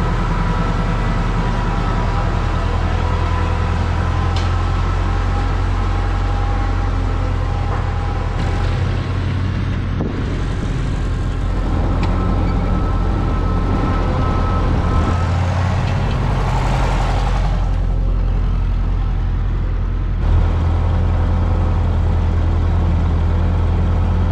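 Ford 8N tractor's four-cylinder engine running steadily as the tractor drives on its new rear tires, its note shifting a couple of times along the way.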